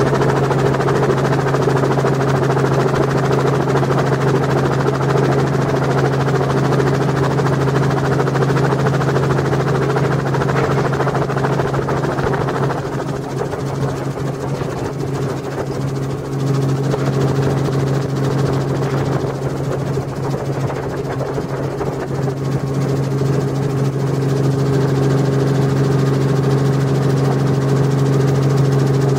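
Heavy engines running steadily with a constant low drone and no distinct impacts. A rougher upper noise drops away about halfway through.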